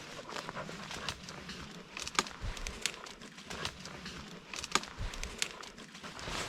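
Twigs and brush crackling and snapping in irregular sharp clicks as someone pushes through undergrowth on foot, with two louder snaps about two and five seconds in.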